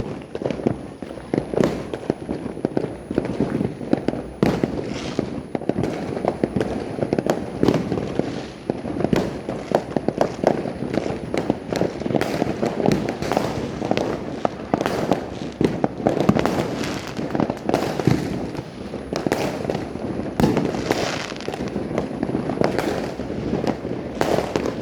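Fireworks and firecrackers going off all around in a dense, continuous barrage of overlapping bangs and crackles, with no break.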